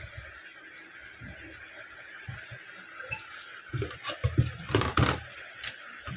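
A bare computer motherboard handled on a workbench: the hand sliding over it, then a cluster of knocks and clatter about four seconds in as the board is lifted and turned, over a steady background hiss.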